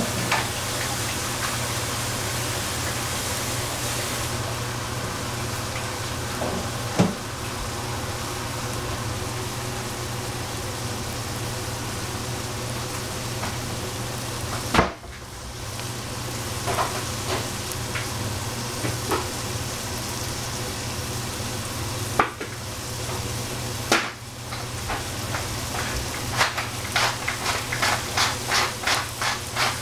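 Cabbage and bean thread cooking in a pan, sizzling with a steady hiss over a low hum. A few single knocks of the utensil against the pan, then near the end a quick run of regular stirring strokes, about three or four a second.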